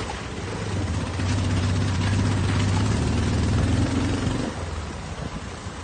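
A four-wheeled motor scooter's small engine running under throttle: a steady low hum that eases off about four and a half seconds in.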